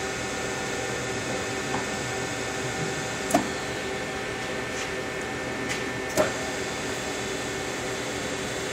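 Steady mechanical hum with several held tones from a motor-driven test rig turning an Anvil SPF-Mini butterfly valve. Two sharp clicks come through, the first a little past the middle and the second about three seconds later.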